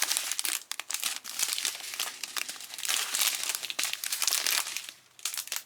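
Small plastic baggies of diamond painting rhinestones crinkling as they are handled, a dense run of crackles that eases off briefly about five seconds in.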